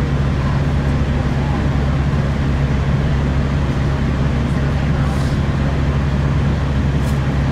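Steady running drone of a Class 165 Turbo diesel multiple unit heard from inside the carriage: the underfloor diesel engine's low hum over wheel and rail noise, holding even throughout.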